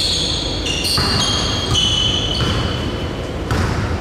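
Basketball players' sneakers squeaking on the court: a quick run of short, high squeaks one after another, fading out near the end, with the ball bouncing over a steady rumble of gym noise.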